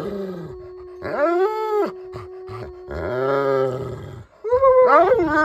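Dog 'talking': a string of about four drawn-out, moaning howl-like calls that slide up and down in pitch, the loudest starting near the end.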